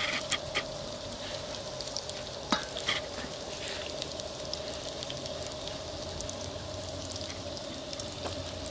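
A hand working through dry breadcrumbs in a stainless steel bowl, with a gritty rustle and a few sharp clicks and scrapes against the metal in the first three seconds. Oil sizzles steadily underneath, and a faint steady tone runs throughout.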